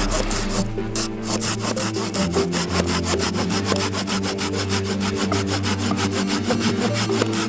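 Wicked Tree Gear folding hand saw with a high-carbon steel blade cutting through a tree limb in fast, even back-and-forth strokes.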